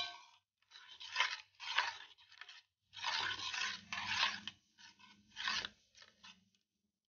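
Metal spoon stirring a thick mango-pulp mixture in a metal pot, scraping and rubbing against the pot in uneven strokes. A short metallic clink opens it, and the strokes thin out near the end.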